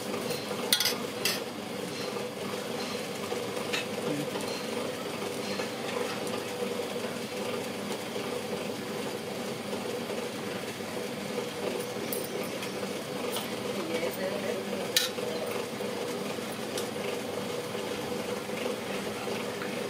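Street-stall cooking at a pan: a steady sizzle of frying, with a few sharp clinks of a metal utensil against the pan.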